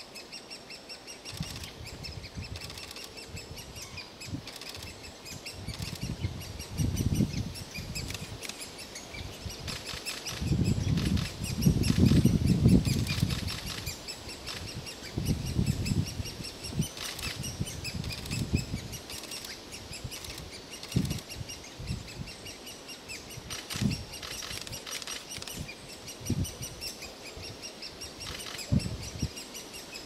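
Birds calling in woodland, short high chirping notes repeated over and over, with bursts of low rumble that are loudest about ten to fourteen seconds in.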